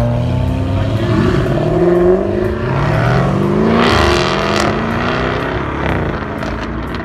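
Sports cars accelerating hard away, the engine note climbing in pitch again and again as they shift up through the gears, peaking about four seconds in and then fading as they pull away.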